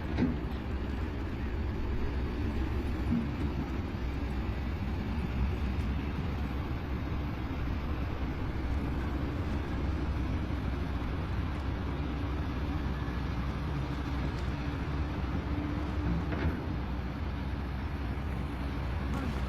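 Diesel engine of heavy earthmoving machinery, bulldozer or excavator, running steadily with a low, even drone.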